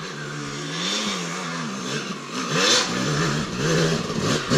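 Dirt bike engine working up a steep hill, its revs rising and falling again and again as the rider works the throttle. It grows louder toward the end as the bike comes closer.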